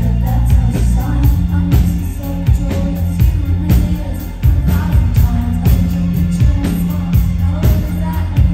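Live indie rock band playing through a club PA, recorded from the audience: a steady drum beat and bass under guitar, with a woman singing. The music dips briefly a little after four seconds and comes back in with a hard drum hit.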